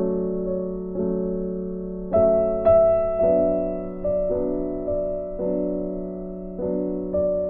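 Background piano music: soft chords struck about once a second, each fading away before the next.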